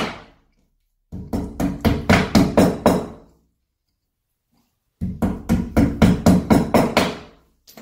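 Hammer tapping wall anchors into holes drilled in a tiled shower wall: two runs of quick, ringing strikes, about five a second, each lasting around two seconds.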